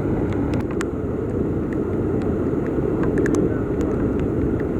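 Torrential rain pouring steadily: a dense low rush with scattered sharp ticks of drops.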